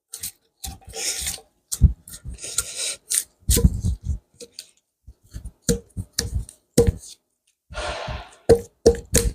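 Homemade forged drawknife scraping bark off a yew log in short, uneven strokes, with scattered sharp knocks and clicks of the blade and wood in between.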